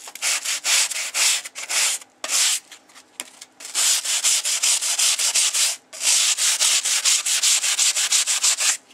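Coarse 60-grit foam sanding block scrubbed rapidly back and forth over the rusty steel of a bow saw blade, dry-sanding the rust off. The strokes come about five a second in runs, with brief pauses about two, three and six seconds in.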